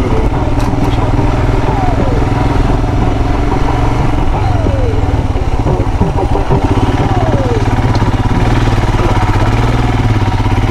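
Royal Enfield Himalayan motorcycle running steadily on the move, its engine drone constant, with three short falling tones over it at roughly even intervals.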